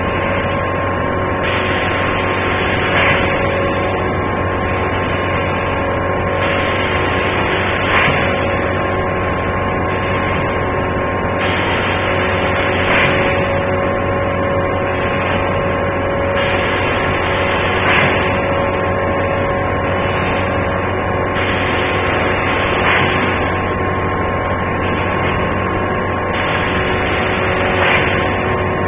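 Automatic egg tray making machine running: a steady mechanical hum with a few constant tones. About every five seconds a hiss swells and ends in a short, sharp burst, one working cycle after another.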